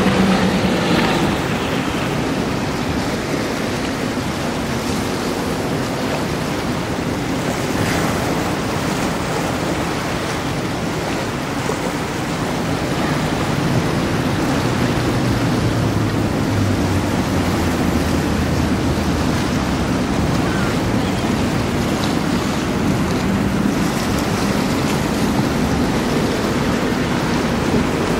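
Skater 50 catamaran powerboat running at speed: its engine note drops in pitch as it passes at the start, over a steady rush of water and spray. The engine note rises again near the end as the boat comes back fast.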